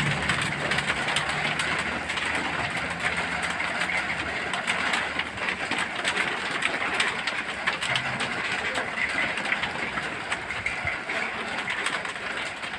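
Heavy rain hissing steadily, with many small drop-like clicks through it, and a low hum during the first couple of seconds.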